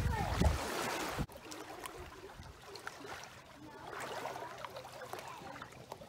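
Wind rushing on the microphone for about the first second, cut off abruptly. Then quiet small splashes and drips as an English springer spaniel wades in shallow lake water.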